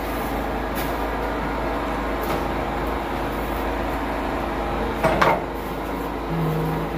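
Steady low mechanical hum with a brief clatter about five seconds in.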